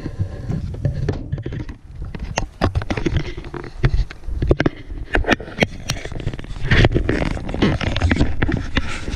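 Irregular knocks, clicks and scrapes over a steady low rumble: handling noise on a handheld camera's microphone as it is carried round the outside of the car.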